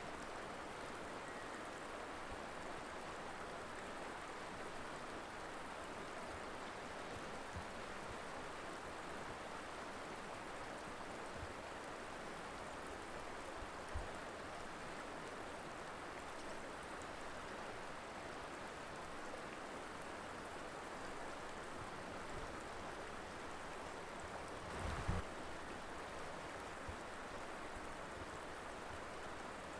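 Mountain river flowing: a steady, even rush of water. Two brief low thumps break in, one about halfway and one near the end.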